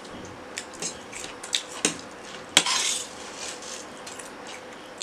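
Metal spoon and fork clinking and scraping against stainless steel plates as noodles are picked up, a string of separate clicks with one louder, longer scrape about halfway through.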